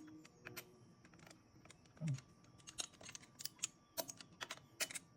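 Ratchet wrench clicking in short, irregular runs as the flywheel bolts are run down before torquing, with a dull knock about two seconds in.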